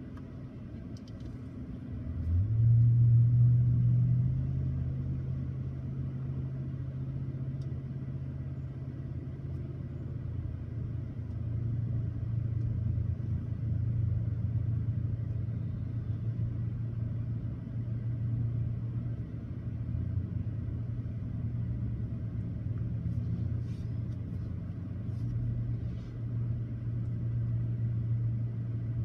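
A steady low engine rumble heard from inside a car, rising in level about two seconds in and then holding with slow swells.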